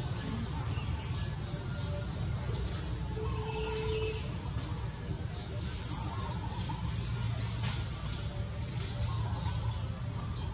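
A bird chirping in quick high warbling phrases, three bursts a couple of seconds apart, over a steady low rumble.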